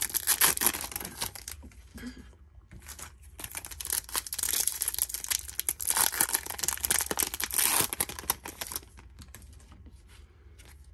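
Foil wrapper of a 2021 Topps Chrome hobby card pack crinkling and tearing as it is pulled open by hand. It is loudest in the first second and a half and again from about three to nine seconds in, then drops to faint ticks and rustles near the end.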